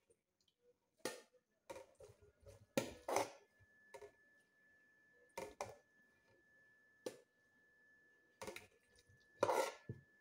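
Metal spoon scraping and knocking against a large aluminium cooking pot as spaghetti is scooped out: scattered short clinks and scrapes, about eight in ten seconds, the loudest a little after three seconds and near the end. A faint steady high whine runs underneath from about two and a half seconds in.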